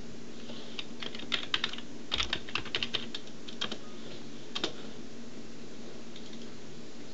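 Keys tapped on a computer keyboard while a filename is typed: a quick run of keystrokes about a second in, then a few single clicks, over a steady low hum.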